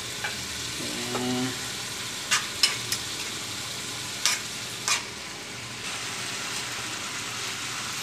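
Sliced bamboo shoots frying in soy sauce in a pan with a steady sizzle, stirred with a metal spoon that clicks sharply against the pan five times between about two and five seconds in, as the sauce cooks down.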